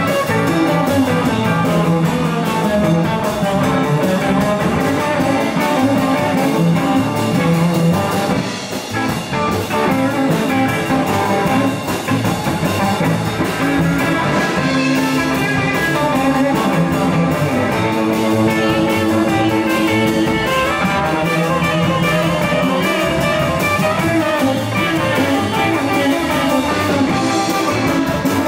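Live electric blues band playing, led by Telecaster-style electric guitars over a steady beat.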